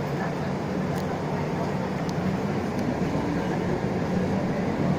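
Isuzu Erga LV290 city bus's diesel engine and drivetrain running steadily, heard from inside the passenger cabin, with a low hum and road noise that grow a little louder near the end.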